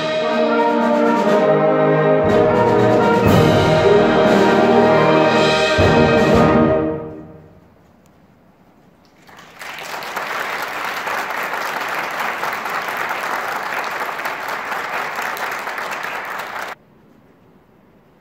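A symphonic wind band (brass, clarinets, horns and tubas) playing the closing chords of a piece, which ring out and die away about seven seconds in. After a short pause, audience applause starts and then cuts off abruptly near the end.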